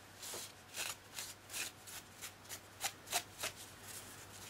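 Tissue paper dabbed and rubbed over the plastic hull of a scale model tank, wiping back excess enamel wash. It makes a quick string of about a dozen soft, papery rustles.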